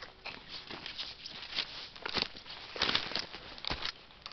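Footsteps rustling and crunching through dry fallen leaves and twigs on a forest floor, at an uneven walking pace.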